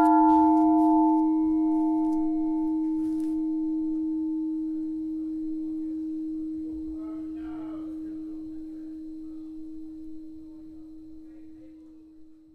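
A single bell-like note, struck once as guitar music ends, ringing on and slowly fading away; its higher overtones die out within the first few seconds, leaving one pure low tone.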